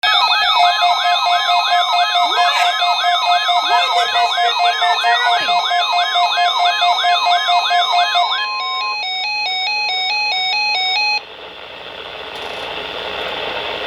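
Several NOAA weather alert radios sounding their alarms at once (rapid warbling sirens, pulsed beeps and stepped chirps) over the broadcast's steady 1050 Hz warning alarm tone, sent as the weekly alarm test. The steady tone and some alarms stop about eight seconds in; the rest cut off suddenly about eleven seconds in, leaving radio hiss.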